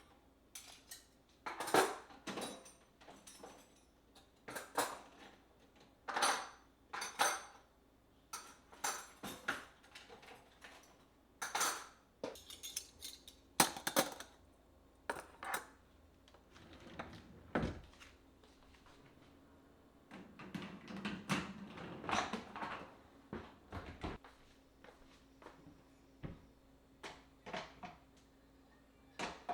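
Irregular clinks and knocks of dishes and cutlery being handled and set down, with a busier stretch of clatter about two-thirds of the way through.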